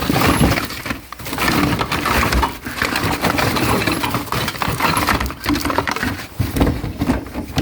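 Rummaging through a box of loose electrical parts such as outlets and breakers: continuous clattering and rattling of hard plastic and metal pieces being shifted about, with a few brief pauses.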